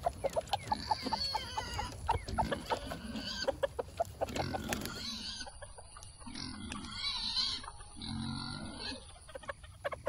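Chickens clucking in quick runs of short notes, with a few rising squawks, as the flock comes out of the coop. About halfway through the sound cuts to quieter, lower sounds.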